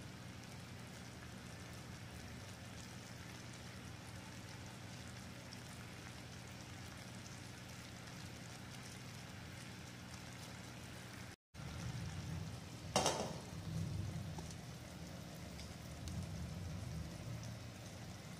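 Sugar syrup bubbling at a rolling boil around cubes of chhena, the syrup-cooking stage of chhena murki. A little past halfway the sound grows somewhat fuller, with one brief clink as a glass lid goes onto the pan.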